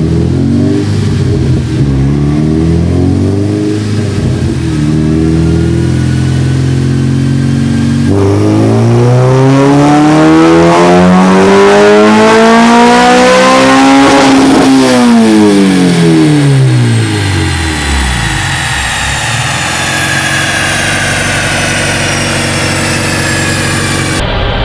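Acura RSX Type-S's K20 2.0-litre inline-four, with a cold air intake and full exhaust, doing a dyno pull. It runs steadily in gear for about eight seconds, then goes to full throttle with the pitch climbing and getting louder for about six seconds. It falls quickly in pitch when the throttle is closed and settles to a lower steady run for the rest.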